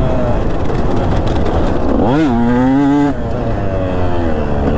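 2019 KTM 150 SX single-cylinder two-stroke engine running under riding load. About two seconds in, the revs climb sharply and hold high for about a second. Then the throttle is shut and the revs fall back to a lower steady note.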